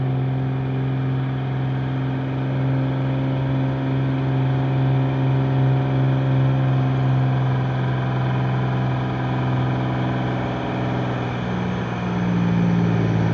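Cummins turbo diesel pickup engine pulling hard at full throttle, towing a heavy gooseneck trailer load up a steep hill. It holds a steady drone, and the pitch shifts near the end.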